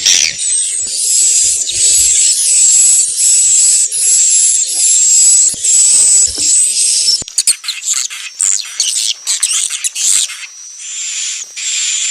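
Swiftlets' courtship call: a dense, high-pitched, buzzy twittering of rapid chirps, broken into choppier chirps for a few seconds past the middle before the steady twitter resumes.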